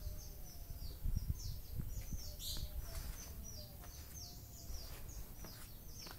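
Small birds chirping continually in short, high, downward-sweeping notes, one louder chirp about halfway through, over a low rumble.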